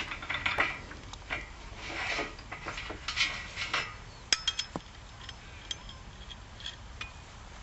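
A hand tool working a fastening on the metal mounting rail of a solar-panel frame: rasping, scraping strokes for the first few seconds, then a string of sharp metallic clinks.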